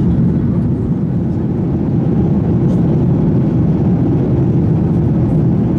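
Steady in-flight cabin rumble of a Boeing 737-800: its CFM56-7B turbofan engines and the airflow, heard from a window seat over the wing.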